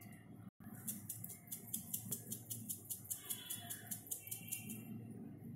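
Dried oregano being shaken from a plastic shaker bottle over a bowl of chopped vegetables: a quick, even run of light clicks, about eight a second, that stops about three seconds in.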